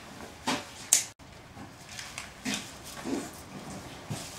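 Handling noises as twine is pulled from a ball and the jeans-wrapped torch is handled on newspaper: a few short rustles and taps, the sharpest about a second in.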